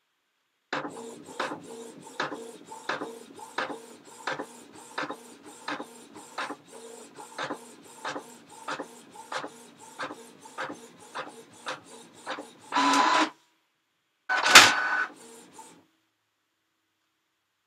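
Printer running: regular clicking strokes about every 0.7 seconds over a steady whirr. Near the end comes a louder, longer whirr, then after a short pause a loud sharp clunk with a brief rattle, after which it stops.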